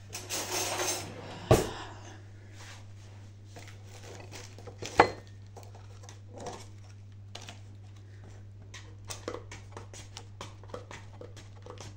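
Cutlery rattling as a knife is taken from a kitchen drawer, with a sharp knock about a second and a half in. Then a table knife clicks and scrapes against a plastic spread tub while scooping out butter, with another sharp knock about five seconds in.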